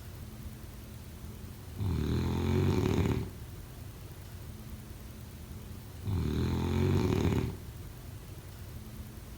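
Snoring in a steady rhythm: two long snores, each about a second and a half, roughly four seconds apart, with quieter breathing between them.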